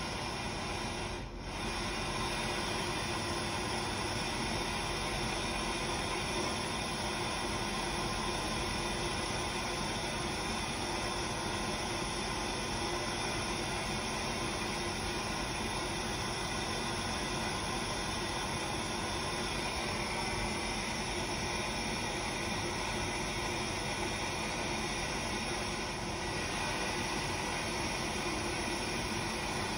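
Propane hand torch burning steadily, a constant hissing rush of flame as it heats aluminium for brazing, with a brief dip about a second in.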